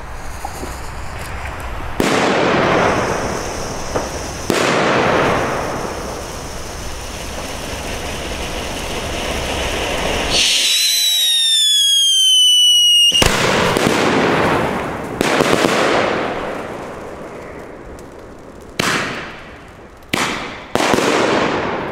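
Funke 3 Schlag Schocker consumer firework: a red bengal fountain hissing for about ten seconds, then a whistle that falls slightly in pitch for about three seconds, then more rushing hiss. Near the end come three sharp single shots, the last two close together.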